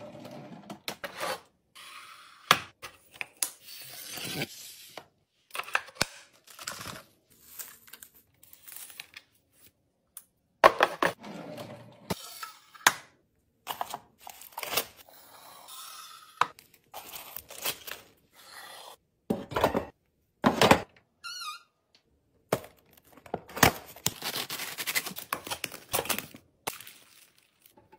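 Kitchen restocking sounds: containers, lids and packages being handled, set down and filled, with sharp clicks, thunks and clatter in short bursts that cut off abruptly between clips. A brief warbling squeak comes a little past the middle.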